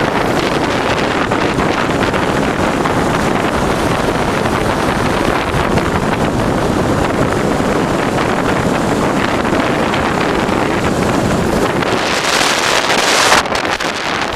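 Strong wind buffeting the microphone: a loud, steady rushing with heavy low rumble. About 12 s in it turns to a higher hiss for a second or so, then breaks off suddenly.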